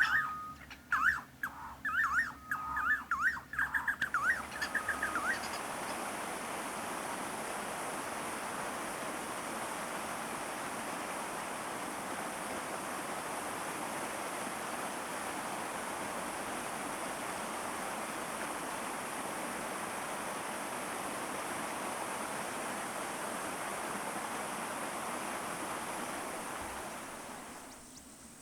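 A bird calling with rapid, repeated chirping whistles for the first few seconds. Then a steady rushing hiss with a thin high band above it, which fades away near the end.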